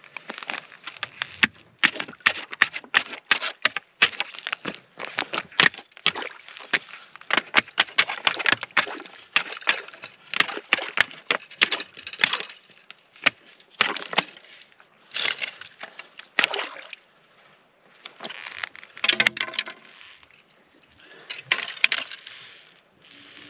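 Plastic ice skimmer breaking up and scooping skim ice and slush out of an ice-fishing hole. It is a fast run of sharp crunches and cracks with sloshing water, and it thins out near the end.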